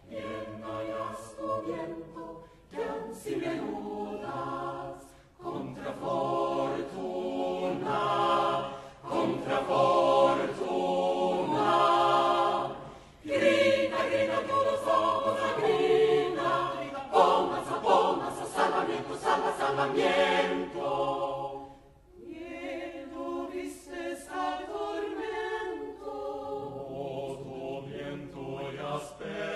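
Mixed chamber choir singing a cappella in Spanish, men's and women's voices together. The singing breaks off briefly about a fifth of the way in, near the middle and about three quarters through.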